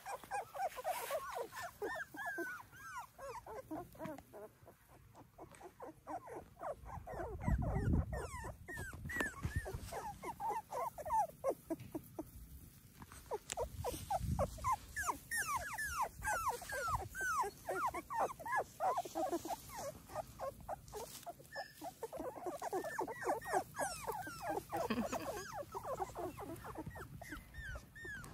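A litter of young Labrador puppies whimpering and squeaking, many short falling cries overlapping almost without a break, puppies unsure of being outdoors for nearly the first time. A low thud comes about eight seconds in and another around fourteen seconds.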